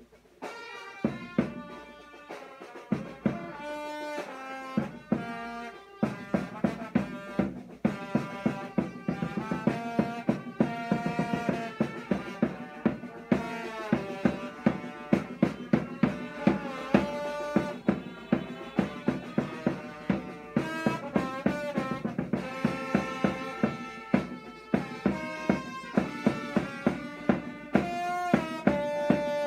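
Vietnamese funeral brass band playing a tune: trombone and trumpets carry the melody over a drum beaten about twice a second.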